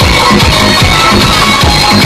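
Electronic dance music playing loud through a truck-mounted DJ line-array speaker stack (the Omkar 72 sound system), with a heavy, steady bass beat.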